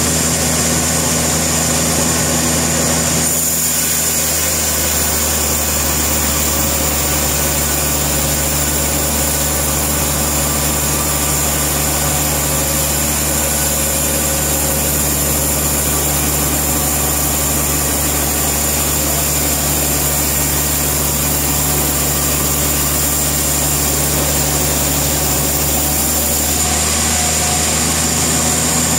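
Sawmill machinery running steadily: an engine-driven saw holding a constant speed. Its tone shifts slightly about three and a half seconds in and again near the end.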